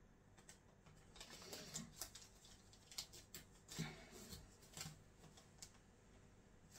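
Faint rustling and light clicks of small things being handled near the microphone, in irregular bursts that start about a second in and stop shortly before the end.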